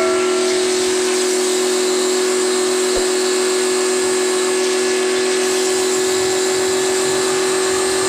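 1700 W electric pressure washer running steadily with a constant hum and even hiss, holding full pressure without pulsing now that the fault is fixed. A small click about three seconds in.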